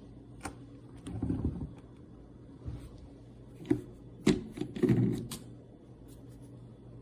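Handling noise: a series of sharp clicks and knocks, bunched in the middle, over a steady low hum.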